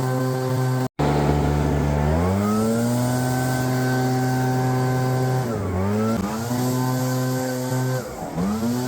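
Small two-stroke engine of a petrol leaf blower running at high throttle, its pitch dropping briefly and coming back up a few times as the throttle is eased and opened again. A brief total break about a second in.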